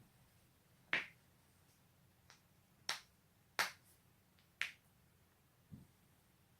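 Spinal joints cracking: a string of sharp, separate pops about a second apart, the loudest a little past halfway, then a duller, softer pop near the end.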